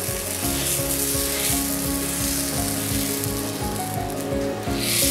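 Dosa batter sizzling on a hot non-stick tawa as it is poured and spread round with a ladle, with background music over it.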